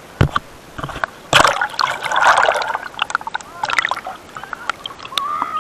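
Seawater splashing and sloshing around a camera dipped at the waterline beside a kayak, with sharp knocks and clicks from the camera being handled. The sound cuts off suddenly at the end.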